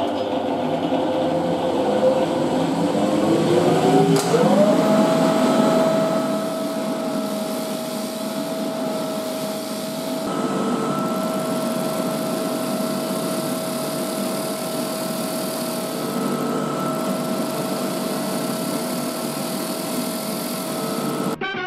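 Freshly overhauled Ford Model A starter motor running free on a bench test. Its whine climbs in pitch over the first few seconds as it spins up, then holds steady until it cuts off near the end.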